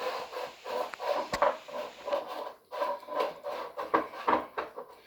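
Puppies whimpering and squeaking in short repeated cries, with a couple of sharp knocks.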